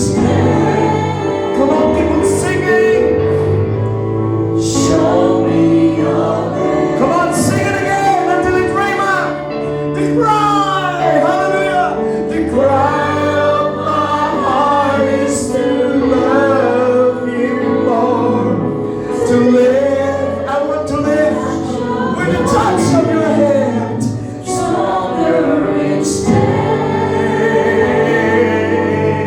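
Church worship music: voices singing a slow worship song over held instrumental chords.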